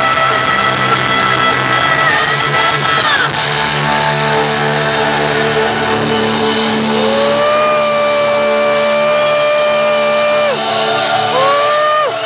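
Heavy metal band playing live through a club PA: distorted electric guitars and bass sustain chords. A lead line of long held notes bends up in pitch and holds, from about halfway through and again near the end.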